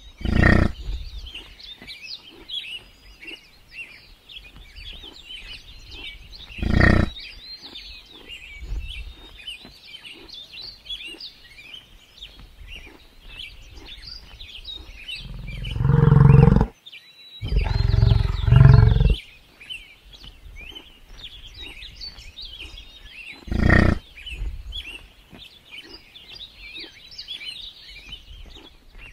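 African (Cape) buffalo giving deep bass calls: three short ones spread through, and midway two longer low calls back to back. Birds chirp steadily behind.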